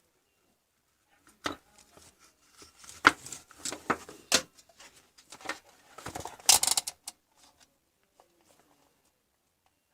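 Irregular clicks, knocks and scraping of small objects being handled, with the loudest knocks about three, four and a half, and six and a half seconds in.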